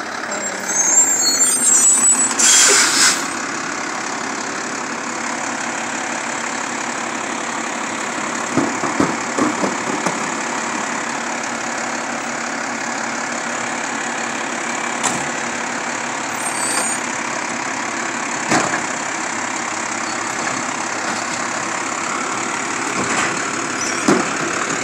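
Mack refuse truck's diesel engine idling steadily at the curb, with a short loud hiss about two seconds in and a few scattered knocks.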